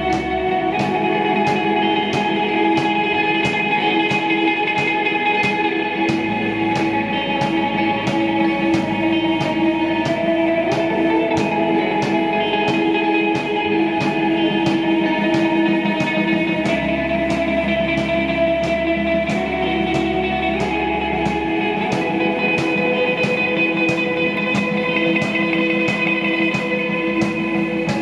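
Live instrumental rock: electric guitar playing long held notes over electric bass and a drum kit keeping a steady, even beat on the cymbals.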